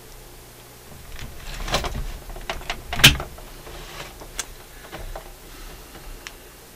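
Handling noise as a hand-held camera is moved about: a run of knocks and rattles, with one sharp knock about three seconds in the loudest.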